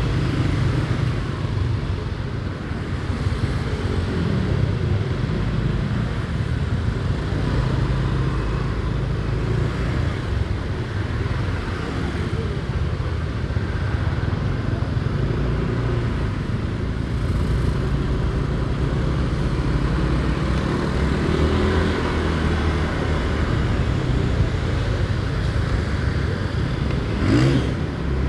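Motorcycle riding along a road: a steady low rumble of engine and road noise, with faint shifts in engine pitch and a short rising whine near the end.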